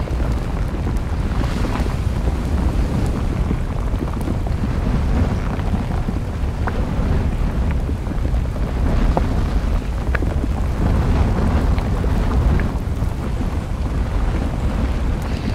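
Volcanic eruption and lava flow: a steady deep rumble with scattered small crackles.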